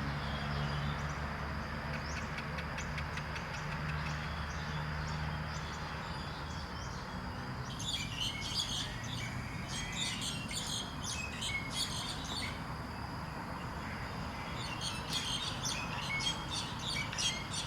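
Birds chirping outdoors in two bursts of rapid, high calls, the first about eight seconds in and the second near the end, over a steady background with a low hum in the first few seconds.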